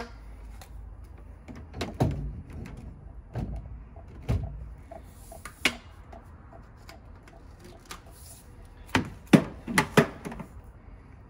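Scattered light knocks and clunks of PVC pipe and fittings being handled and test-fitted, with a quick run of sharper knocks about nine seconds in.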